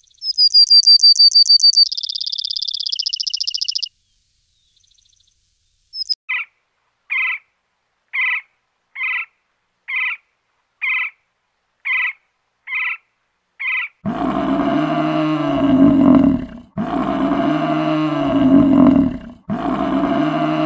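A run of different animal calls. First comes a bird's high, rapid chirping trill that drops lower partway through, lasting about four seconds. After a pause there are about nine short bird calls, roughly one a second. From about two-thirds of the way in, three long, loud, low bellows follow, lowing like a water buffalo's.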